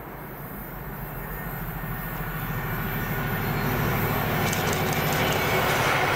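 Class 70 diesel locomotive hauling a freight train, its GE V16 engine running with a steady low throb that grows louder as the train approaches. A few light clicks from the wheels come about five seconds in.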